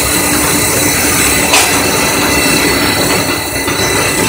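Corrugated cardboard slitter-slotter machine running, with steady mechanical noise and a high-pitched whine. A single sharp click comes about a second and a half in.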